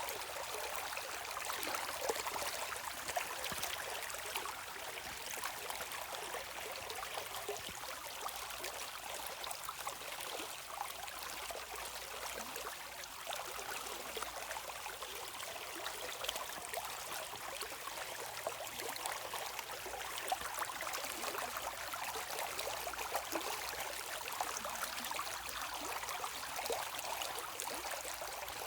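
Shallow stream running steadily over rocks, a continuous babble and trickle with small splashes throughout.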